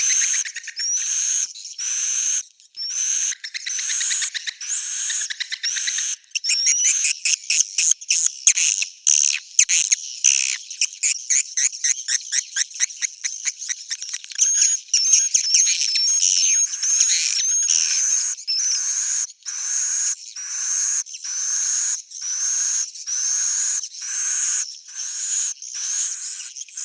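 Swiftlet roosting-call lure recording: short rising chirps repeat a little more than once a second. From about six seconds to fourteen seconds they give way to a fast run of short clicking chirps and twittering, then the rising chirps resume. All of it is high-pitched, with no low sound at all.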